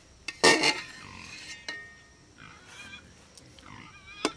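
Metal ladle scraping and knocking against an aluminium pot while rice is scooped out: a loud harsh scrape about half a second in that leaves the pot ringing, then a few sharp clinks. Faint chirping calls in between.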